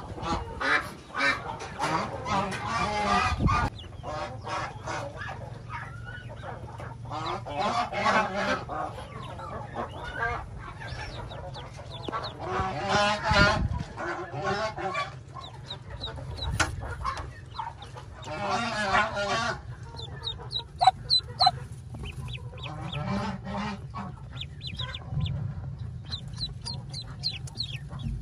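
Muscovy ducklings peeping in short, thin, high chirps, most thickly in the second half. Four longer, harsh calls from the brooding Muscovy hen come at intervals over them.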